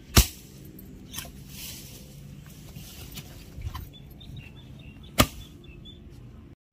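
A hatchet chopping a wooden log for firewood: two sharp strikes about five seconds apart, with lighter knocks in between.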